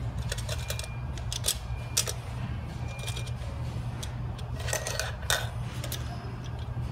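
Irregular clicks and clinks of metal coil springs and plastic spring retainers being pried and shifted by hand in an MPS6/6DCT450 dual-clutch transmission clutch, with a cluster of clicks a little after the middle. A steady low hum runs underneath.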